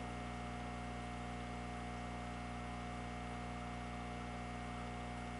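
Steady electrical hum with a faint constant higher tone over a light hiss: room tone, unchanging throughout.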